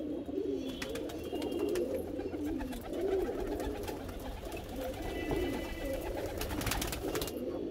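Pigeons cooing steadily in the background, with a few faint high chirps and a short run of clicks near the end.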